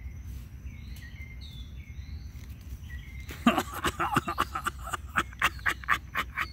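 Faint repeated short chirps. Then, about halfway through, a run of loud, irregular crackling and rustling clicks close by, about three or four a second, until the end.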